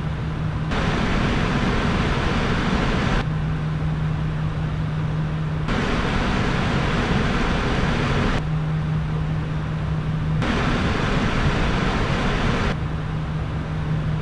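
Radiator fans of 360 mm AIO liquid coolers (NZXT Kraken Z73 and EVGA CLC360) running at 100%, over 2000 rpm: a loud, steady whoosh of air. It switches abruptly every two to three seconds between two fan setups, one brighter and hissier, the other with a steady low hum underneath.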